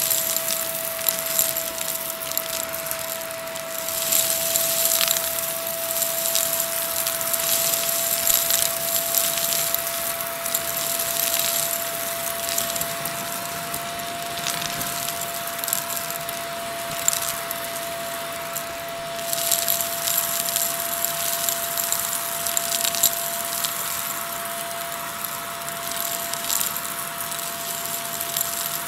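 Shark Navigator vacuum running with a steady motor whine while its wand nozzle sucks up small rubber loom bands from a shag rug; the bands crunch and rattle up the tube in a stream of irregular clicks.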